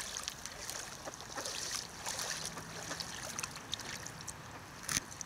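Pond water lapping and sloshing at a camera held at the waterline, with fine trickling crackles. A single sharp knock comes near the end.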